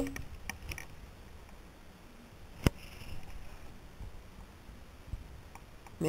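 Faint handling noise as a felt craft bird is moved about, with a few small ticks and one sharp click about two and a half seconds in.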